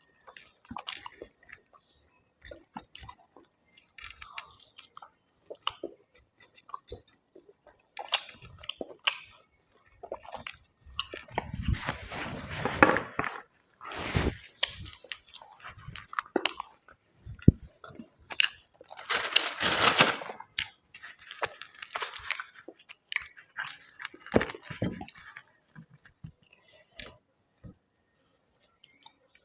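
A person chewing and biting crisp food close to the microphone, with scattered small crackles and two longer, louder spells of crunching, about a third and two-thirds of the way through.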